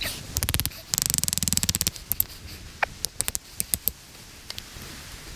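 Fox Aruru folding knife's blade cutting and scraping into a wooden stake while carving a notch. A quick run of strokes comes first, then a rapid, even rattle of scrapes lasting about a second, then scattered sharp clicks of the blade biting the wood.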